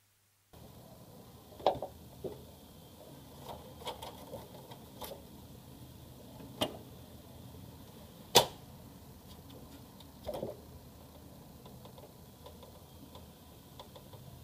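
Scattered clicks and knocks of an HP Color LaserJet CP1025 laser printer's plastic parts and casing being handled and moved, the sharpest knock about eight seconds in, over faint room tone.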